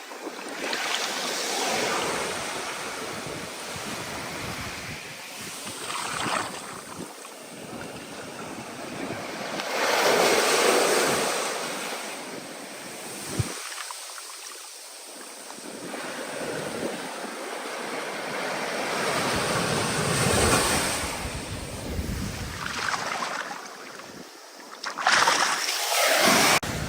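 Stormy ocean surf: waves surge and break in swells a few seconds apart, with wind. The loudest surge comes near the end.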